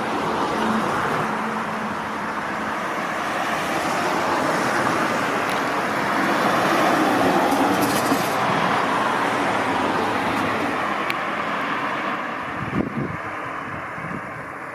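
Road vehicles, an ambulance among them, driving past: engine and tyre noise swells as they pass, loudest about halfway through, then fades away.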